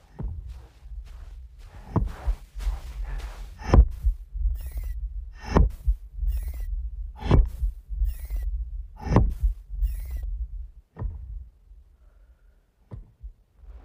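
A thumper, a stake-like pounding device driven into the sand, beating out deep thuds about every two seconds with lighter sharp clicks between them. The beating stops about ten seconds in, leaving a couple of faint knocks.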